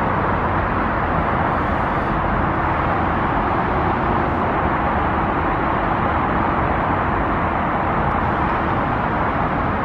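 Steady, even hum of distant city traffic over a wide urban area, with a faint steady tone underneath.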